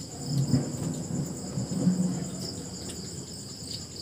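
Night insects trilling in a steady, high-pitched chorus, with a faint low murmur beneath it for the first two seconds.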